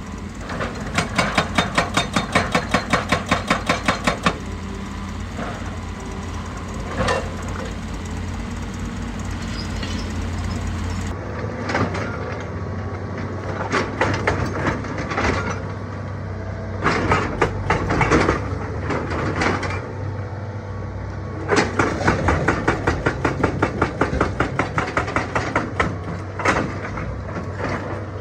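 Excavator-mounted hydraulic rock breaker hammering rock in two runs of rapid blows, about five a second, over the excavator's steady diesel engine, with single knocks of rock between the runs.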